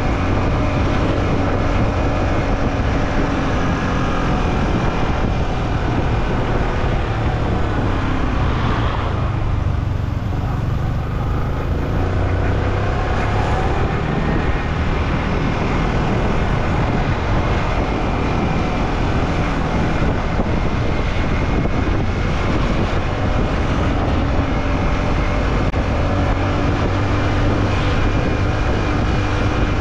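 Yamaha M-Slaz motorcycle's single-cylinder engine running steadily under way, with wind and road noise on the action camera's microphone. The engine note thins briefly about a third of the way in.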